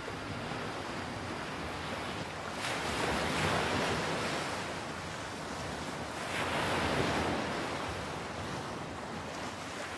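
Ocean waves washing in over a steady rush of surf, with two louder surges about three and seven seconds in.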